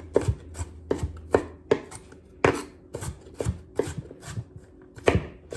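Knife chopping celery stalks on a cutting board: a steady run of sharp knocks, about three a second.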